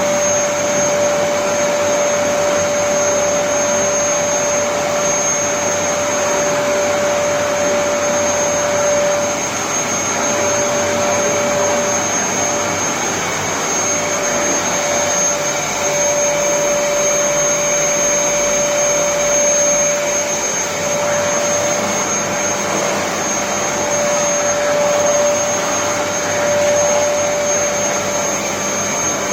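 Vacuum cleaner running steadily: a rush of air with a constant whine over it.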